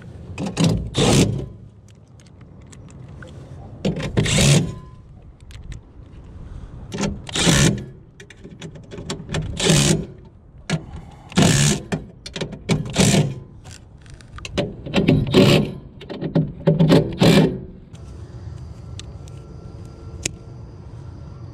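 Milwaukee M18 FUEL brushless cordless driver running in about nine short bursts, each half a second to a second long, backing out the screws that hold a furnace inducer motor.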